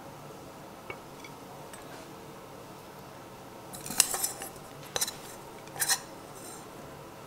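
Kitchenware being handled: three short clusters of light clinks and clatters about a second apart, the first the loudest, over a faint steady hum.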